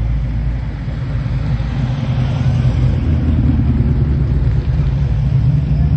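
Classic car engines running at a slow parade pace as a Ford Falcon XY GT and then a 1960s Ford Mustang drive past close by. The low engine note grows louder about halfway through as the Mustang draws level.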